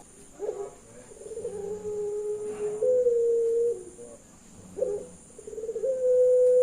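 Puter pelung dove cooing: two long, drawn-out coos, each opening with a short note, then a held low note that steps up in pitch and falls away at its close; the second coo is still sounding at the end.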